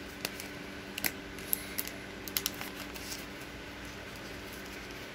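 Small clicks and light crinkles of plastic packaging being picked open with fingernails. There are a dozen or so short sharp ticks in the first three seconds, fewer after that, over a faint steady hum.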